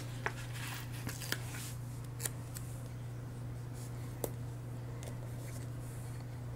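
Sticker sheets and paper being handled: planner stickers peeled off their backing and pressed onto a planner page, giving a few light ticks and rustles over a steady low hum.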